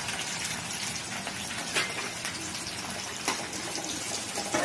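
Sliced onions, green chillies and curry leaves frying in plenty of hot oil in a pan: a steady sizzle with a few sharp crackles.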